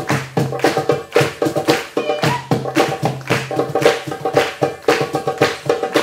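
Live hand-drum music: a doumbek and a cajon playing a fast, driving rhythm, with some held tones underneath.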